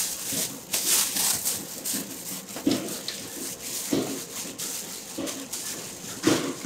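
Gloved hands kneading wet dough in a plastic-lined steel bowl: irregular squelches with plastic bag rustling, the strongest about three times in the middle and near the end.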